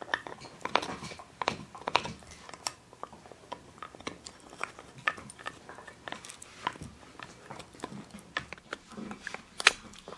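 Husky gnawing a split antler chew: irregular sharp clicks and crunches of teeth biting and scraping on hard antler, with the loudest crack a little before the end.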